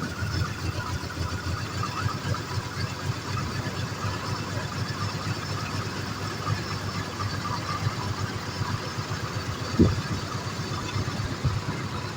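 1986 Jaguar XJ6 engine idling just after starting on its first run in two years, with an uneven pulsing beat. A single sharp knock sounds about ten seconds in.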